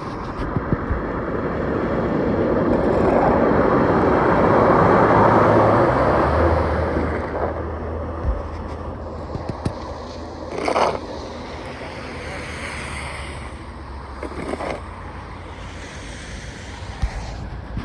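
A vehicle passing: its engine and tyre noise swells to a peak about five seconds in, then fades, leaving a low steady engine hum.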